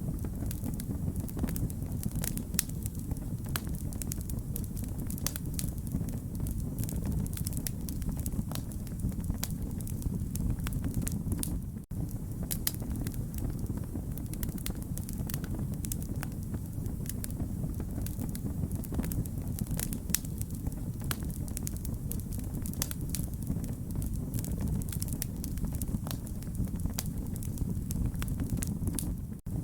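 Wood fire crackling: a steady low rumble of burning with frequent sharp pops and snaps. The sound drops out for an instant twice.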